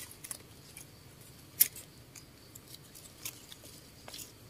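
A few faint, sharp clicks and snaps of a hand picking a mushroom from twigs and leaf litter on the forest floor; the loudest snap comes about a second and a half in.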